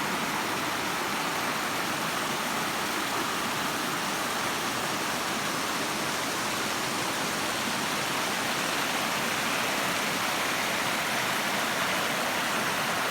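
Waterfall water rushing and splashing in a steady, unbroken roar of noise.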